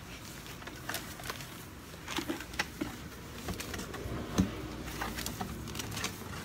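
Handling noise from packs of synthetic braiding hair and their long label strips: irregular rustling and light taps, with one louder knock about four seconds in.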